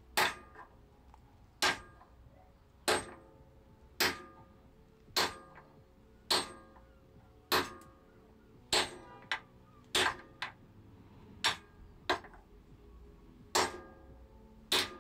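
A sledgehammer striking a seized steel engine-mount bolt on a Honda NT650 Bros/Hawk GT, about a dozen blows a little over one a second, each with a short metallic ring. The bolt is corroded fast and does not move.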